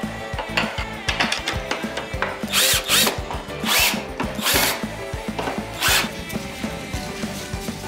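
Cordless drill-driver driving screws into the wooden rim of a cat exercise wheel, the motor spinning up in about five short bursts from about two and a half to six seconds in.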